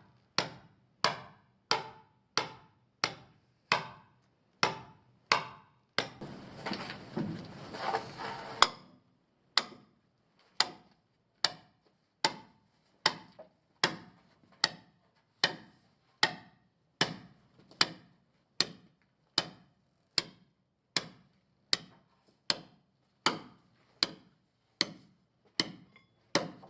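Sharp knocks at a steady, even pace, about three every two seconds, each with a short ringing tail. A rustling noise runs under them for a couple of seconds starting about six seconds in.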